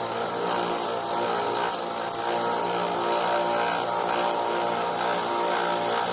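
Electric bench sander running steadily while knife handle scales are ground against it, with a hiss that comes and goes twice in the first two seconds as the piece is pressed on.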